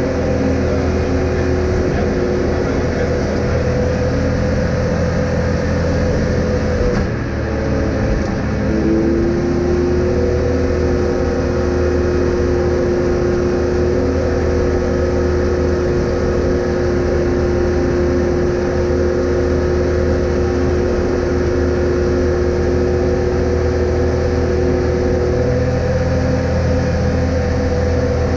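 Off-road vehicle's engine running steadily under way. The engine note drops briefly about seven seconds in, then picks up and holds steady again.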